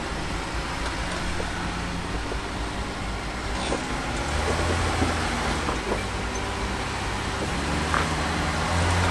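Jeep Gladiator Mojave's engine working at low speed as it crawls up rock ledges, its drone swelling under load a little under halfway through and again near the end. A few light knocks come through over it.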